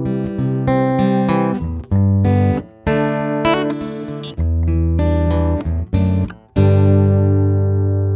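Acoustic guitar recorded direct through the line input, playing an instrumental passage of ringing chords, a new chord struck about every second.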